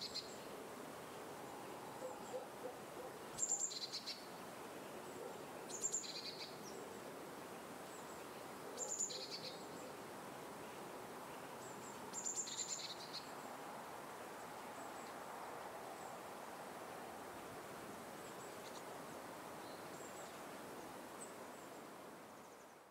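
Wild birds calling over a steady outdoor background hiss: a short, high two-note call, the first note higher than the second, repeating about every three seconds.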